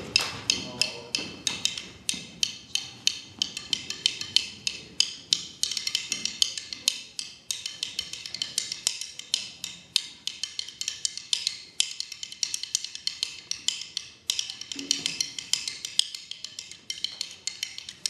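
A pair of wooden drumsticks struck against each other in fast, rhythmic patterns of sharp clicks, with a few brief pauses.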